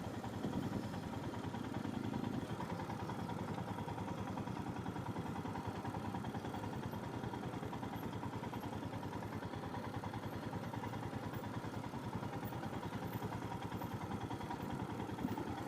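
Royal Enfield Himalayan motorcycle's single-cylinder engine running steadily at low revs as the bike rides slowly over an off-road track.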